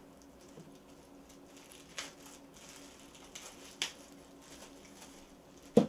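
Paper cards and leaflets being handled and shuffled, with soft rustling and a few light taps, and a sharper tap near the end. A faint steady hum runs underneath.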